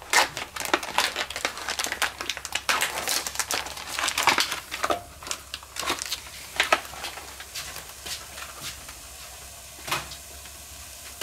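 Thin plastic meat tray crinkling and crackling as diced bacon is shaken out of it into a cast-iron pot: dense, irregular crackles for about five seconds, then only a few scattered clicks.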